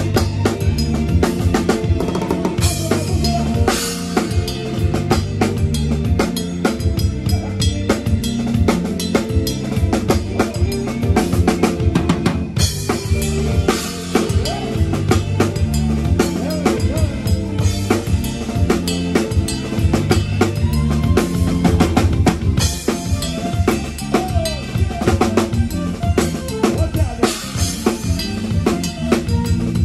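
Drum kit played live with a band: steady kick drum, snare and rimshots over the band's bass line, with cymbal crashes washing in about every ten seconds.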